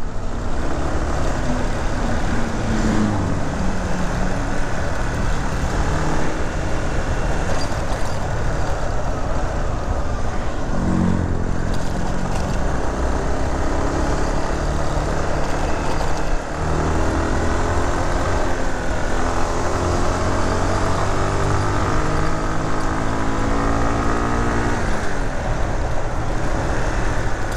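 A vehicle's engine running on the move, its pitch shifting up and down with the throttle, over a steady rush of wind and road noise.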